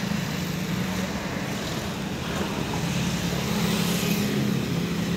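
Maruti Ertiga's four-cylinder petrol engine idling, a steady hum heard from inside the cabin.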